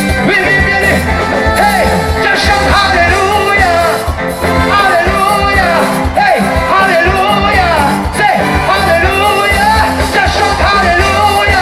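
Live band playing upbeat gospel music, with a voice singing over a steady bass.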